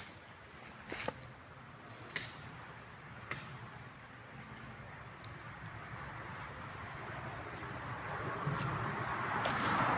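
Insects trilling steadily in a high, unbroken chorus, with a few sharp clicks in the first few seconds. A broad rushing noise swells in the last few seconds.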